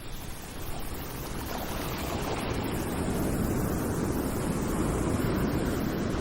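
Wind and sea noise fading in over the first few seconds, then steady, with wind rushing on the microphone.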